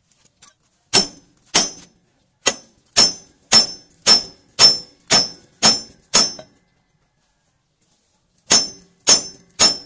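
Hammer blows on steel on the steering linkage of an Isuzu Giga truck, each strike ringing sharply: a run of ten about two a second, a pause of two seconds, then three more near the end.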